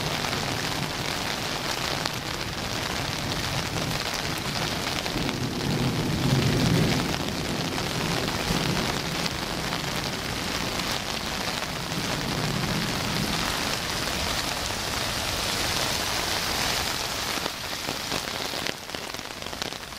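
Heavy rain falling steadily on pavement and grass, with low rumbles about six seconds in and again a little past twelve seconds.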